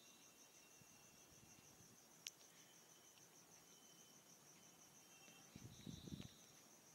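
Near silence: onions and garlic frying quietly in oil in a kadhai, with a spoon stirring and scraping the pan briefly about five and a half seconds in. A faint, steady, high-pitched pulsing trill runs underneath.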